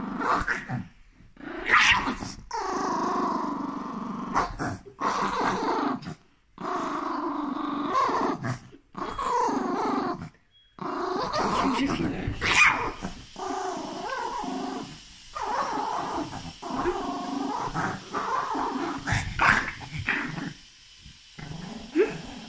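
Small Yorkshire terrier growling again and again in long growls, each broken off by a short pause for breath, with a few sharp barks or snaps among them. It is a grumpy warning growl from a dog guarding the fleece blanket it is wrapped in.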